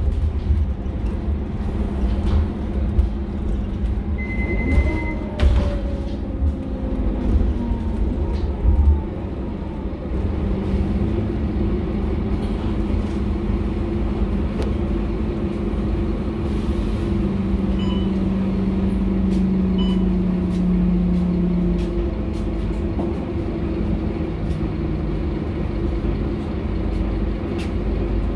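Scania K230UB city bus's 9-litre five-cylinder diesel and drivetrain running under way, heard from inside the passenger cabin as a steady low drone. Knocks and rattles come through over the first nine seconds, with a short high beep about four seconds in.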